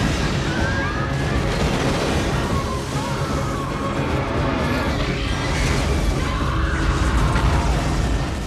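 Loud, dense movie-trailer soundtrack: dramatic score layered with deep booms and crashing sound effects, with a few gliding whine-like effects.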